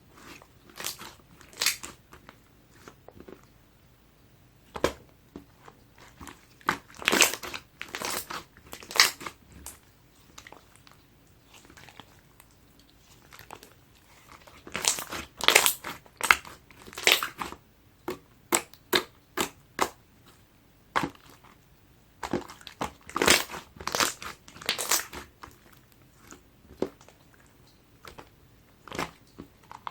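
Clear slime squeezed, pressed and folded by hand, giving crackling, popping clicks in several irregular bursts with quieter gaps between.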